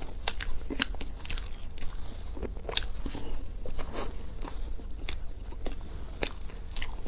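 Close-miked eating sounds: crunchy bites and chewing of a golden fried, cream-filled bun, with about a dozen sharp crackles of its crust as it is torn and bitten.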